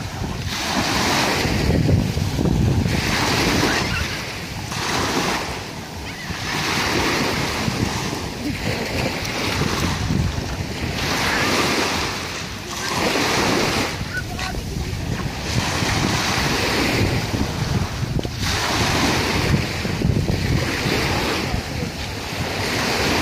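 Small waves breaking and washing up a sandy beach, swelling and fading every two to three seconds, with wind buffeting the microphone.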